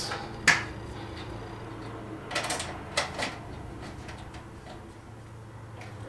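Sharp metallic clicks and clatter of a thin sheet-metal colander and tin can being knocked together and handled while a screwdriver works small screws into the lined-up holes. The loudest click comes about half a second in, with a few quicker clicks between two and three seconds in.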